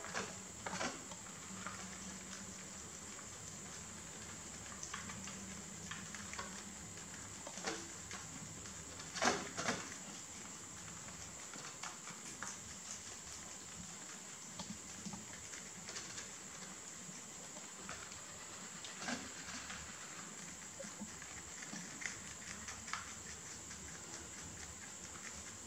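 Two rabbits nibbling and chewing sweet basil leaves: faint, scattered crunching clicks and leaf rustles, the loudest cluster about nine seconds in, over a steady high-pitched hiss.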